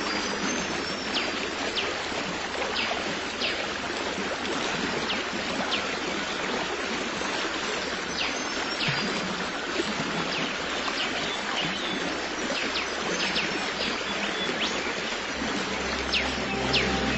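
Stream water flowing steadily, with many short high chirps scattered through it. Soft music comes in near the end.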